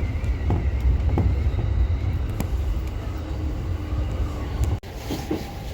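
Train running: a steady low rumble with a few sharp clicks. The sound drops out for a moment near the end and comes back a little quieter.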